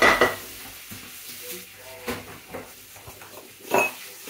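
Onion and garlic frying in a pan, a faint steady sizzle, with a utensil knocking and scraping against the pan as it is stirred; the loudest clatters come at the start and again near the end.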